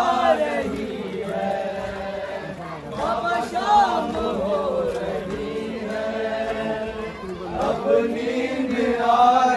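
A group of mourners chanting a noha, a Shia lament, together in long sung phrases.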